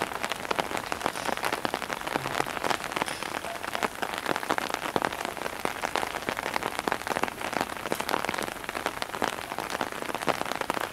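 Steady rain falling, heard as a dense, irregular ticking of drops over a continuous hiss.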